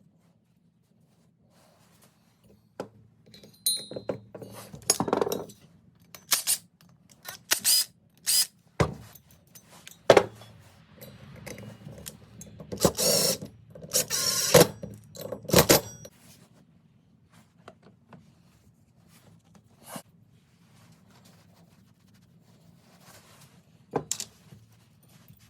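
Hand work on a two-stroke blower engine during a top end rebuild: a run of clicks, knocks and short scraping bursts from tools and metal parts. It is busiest in the middle and thins out to a few clicks near the end, over a faint steady low hum.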